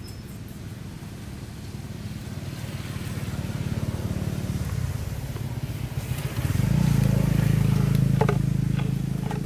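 A motor vehicle's engine running close by, growing louder for several seconds, loudest in the last few seconds, then starting to fade as it passes. A few short sharp sounds come near the end.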